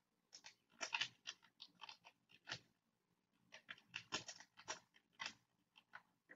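Computer keyboard being typed on: a quick, irregular run of faint key clicks, with a pause of about a second halfway through.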